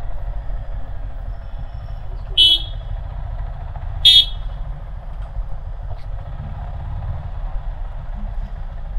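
Two short vehicle horn toots, about two and a half and four seconds in, over the steady low rumble of a moving ride.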